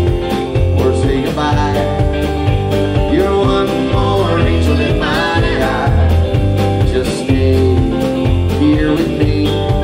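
A rock band playing live: electric guitar over a pulsing bass line and a steady drum beat.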